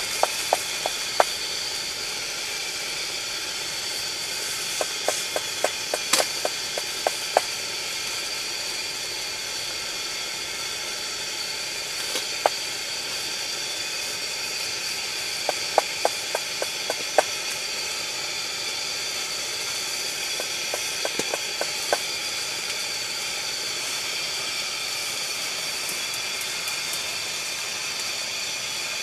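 Steady hiss of a brass pressure lantern burning, with a few short runs of sharp clicks standing out above it.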